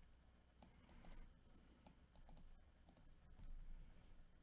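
Faint, irregular clicks of a computer mouse and keyboard over near silence.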